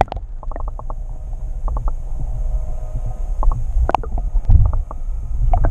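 Muffled low rumble of water against a submerged camera housing, with scattered short clicks and a couple of sharper ticks about four seconds in and near the end.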